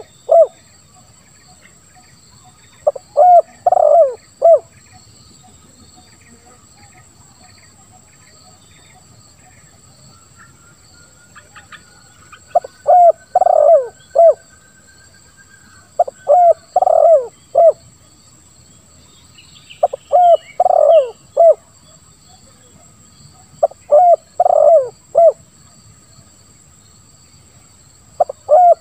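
Spotted dove (tekukur) cooing: five phrases of three or four deep coos each, one about 3 seconds in and then, after a long pause, a phrase every three to four seconds. Faint chirps of other small birds and a steady high insect buzz behind.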